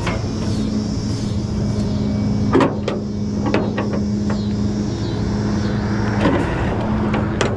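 Rollback tow truck running with a steady hum as its hydraulic bed is worked. The hum breaks off briefly about six seconds in, and there are several sharp metal clanks, about two and a half, three and a half, six and seven and a half seconds in.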